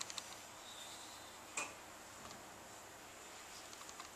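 Faint, scattered clicks from a laptop's keys and buttons as values are entered in a settings dialog: a few quick clicks at the start, one louder click about one and a half seconds in, then a few light ticks over a low room hiss.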